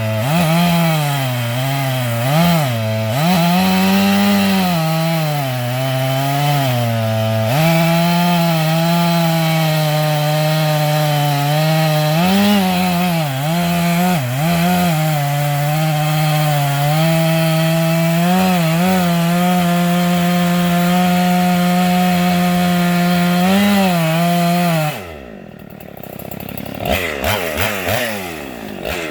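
Husqvarna two-stroke gas chainsaw cutting wood at full throttle, its pitch sagging and recovering as the chain loads up in the cut. About 25 seconds in the throttle is released and the engine drops toward idle, then is revved in a few short blips near the end.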